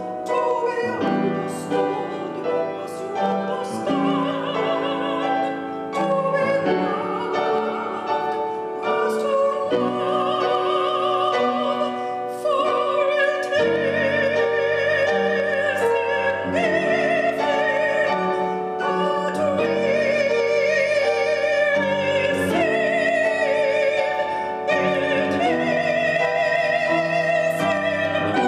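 A female soloist singing a sacred art song in a classical, operatic style with marked vibrato, accompanied by piano.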